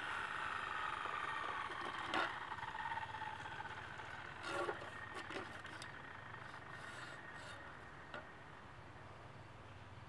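A mechanical whine that falls slowly in pitch and fades over the first few seconds, followed by a few light knocks and scrapes as an aluminium level is set down and shifted on a cut stone block.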